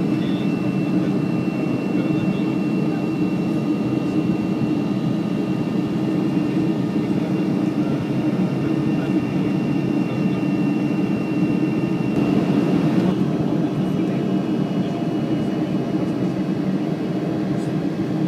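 Steady jet-engine and airflow noise inside the cabin of a Boeing 737-500 in its climb, from its CFM56-3 turbofans, with a faint high steady whine above it.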